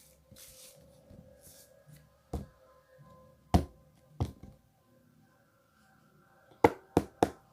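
Several sharp taps or knocks over a faint steady hum: single knocks about two and a half seconds in and twice more soon after, then three quick knocks in a row near the end.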